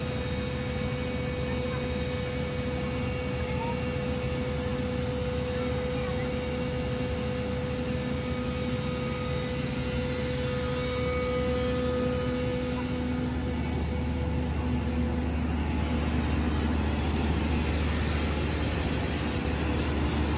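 Diesel engine of a Hitachi Zaxis 200 crawler excavator running steadily close by, a continuous low drone with a thin steady whine over it that fades out about two-thirds of the way through.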